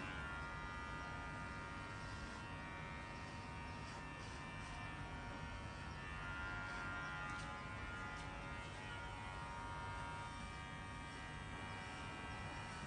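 Electric hair clippers running with a steady buzz as they shave hair down to the scalp.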